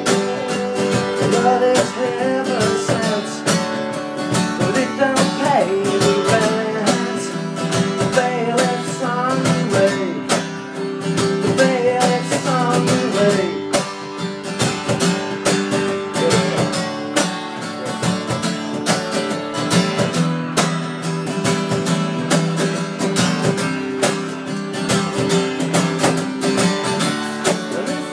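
Acoustic guitar strummed steadily, chords played live in a song's rhythm.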